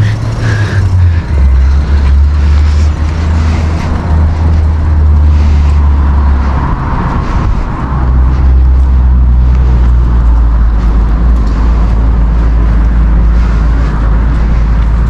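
Loud, steady low rumble that shifts slightly in pitch twice, over a faint even hiss with a few light ticks.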